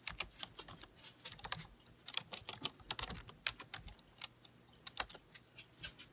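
Close-up eating sounds: chewing and handling food, heard as a run of irregular, sharp little clicks.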